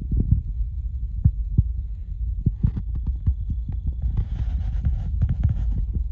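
Low rumble with irregular dull thumps on the microphone, and a few seconds of dry crackling rustle starting about two and a half seconds in.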